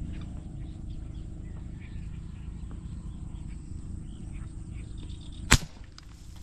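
Outdoor ambience: a steady low rumble, typical of wind on the microphone, with faint chirps from birds or insects. One sharp click about five and a half seconds in.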